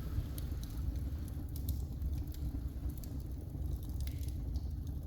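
Wood fire crackling in an open fireplace: irregular sharp pops and snaps over a steady low rumble.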